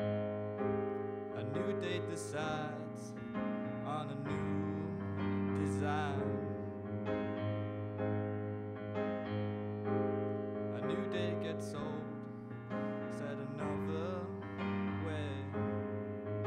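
Electric stage keyboard playing sustained chords that change every couple of seconds, in a slow, gentle song. A wavering higher melody line comes in over the chords at times.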